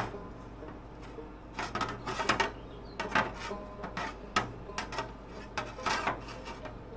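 A metal license plate being slid and shifted against other plates and the surface behind them: a series of short, irregularly spaced scraping rubs.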